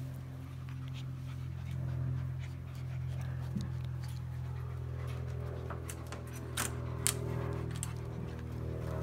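Dogs panting, with a few sharp clicks about two-thirds of the way in, over a steady low hum.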